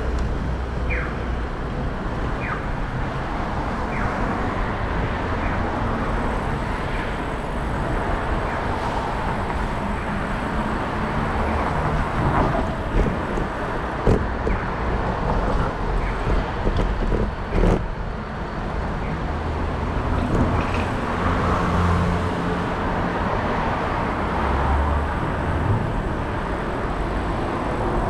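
City street ambience: a steady wash of traffic noise with a low rumble. A few short, high, falling chirps come in the first seconds, and a couple of sharp knocks about halfway through.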